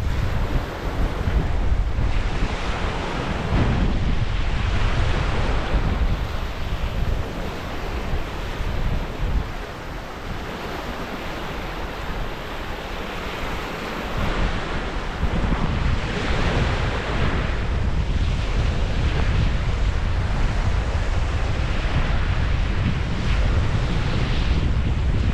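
Surf washing on the shore in strong wind, with heavy wind rumble on the microphone. The rush of the waves swells and falls every few seconds, and the wind eases for a few seconds around the middle.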